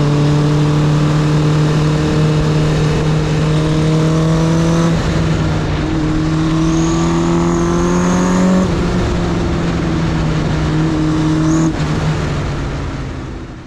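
Honda CB900F's air-cooled inline-four engine running under load, its pitch climbing slowly and dropping sharply about five seconds in and again near nine seconds, as in upshifts while riding. The sound fades out at the very end.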